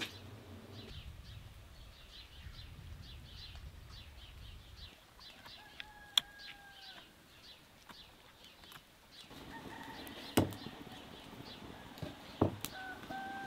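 Small birds chirping rapidly over a low rumble, with a rooster crowing about six seconds in. About nine seconds in, a wood fire crackles with a few sharp snaps, and the rooster crows again near the end.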